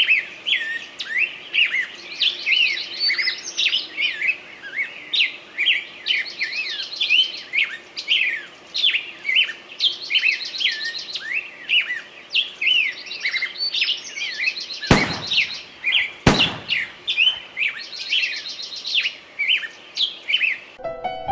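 Many small birds chirping and trilling without a break, a dense chorus of birdsong. Two sharp knocks about a second and a half apart come roughly two-thirds of the way through.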